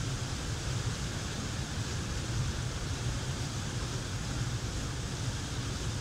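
Steady rushing of a waterfall pouring into a river, an even noise with a heavy low rumble.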